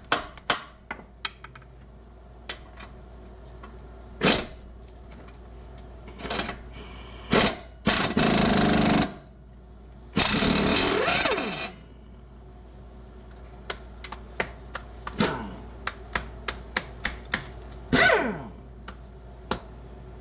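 Metal tool clinks and knocks while a rusty 19 mm castle nut on a car's lower ball joint is worked loose, with two loud power-tool bursts of about a second each, around eight and ten seconds in.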